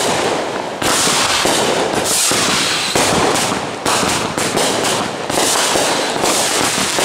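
Consumer aerial fireworks going off one after another, a dense, nearly unbroken run of bangs and crackle with a fresh loud burst about every second or so.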